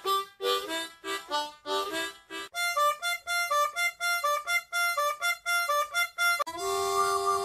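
Harmonica played with the hands cupped around it. It opens with short, breathy rhythmic notes; then, after a cut, comes a quicker run of clean single notes. Near the end one long note is held, wavering in a steady pulse.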